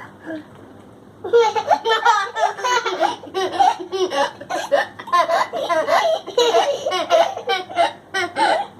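Young children laughing hard in repeated high-pitched peals, starting about a second in.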